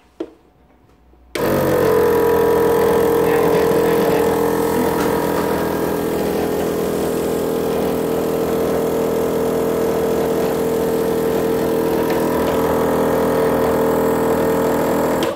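Portable medical suction machine switched on about a second in, its pump motor running with a loud, steady hum, then cut off suddenly near the end.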